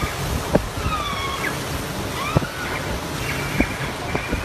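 Choppy floodwater surging and sloshing through a flooded street, with wind gusting on the microphone. Sharp knocks sound about three times, and short high squeaks that slide up and down in pitch come and go.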